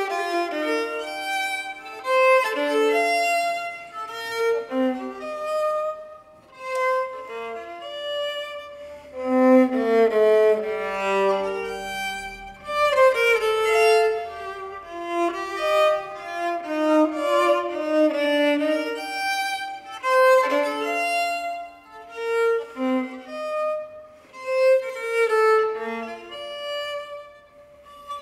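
Solo bowed string instrument playing a melody of quick, changing notes.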